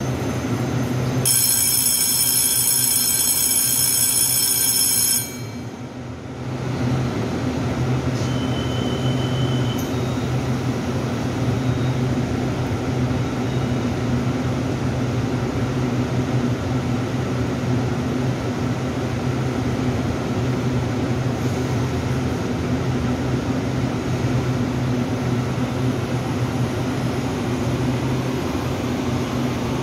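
Taiwan Railway electric multiple unit at a platform: a loud steady door-closing warning tone sounds for about four seconds, starting about a second in. Then the doors shut and the train's steady motor hum carries on as it pulls out.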